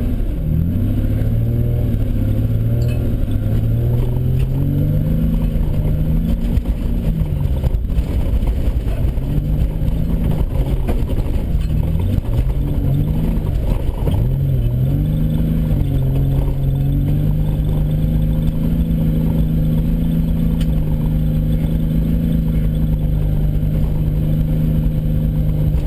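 Holden VN Commodore's engine revving up and down as the car slides around a grassy paddock, heard from inside the cabin, with the body knocking and rattling over rough ground. The revs dip and climb several times, then hold steady for the last ten seconds or so.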